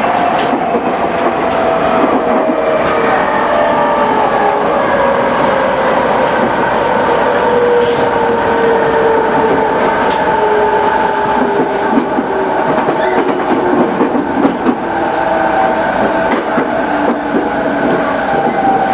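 E217 series electric train running, the whine of its Mitsubishi IGBT-VVVF inverter and traction motors sliding slowly down in pitch over a steady rumble of wheels on rail, with a few clacks.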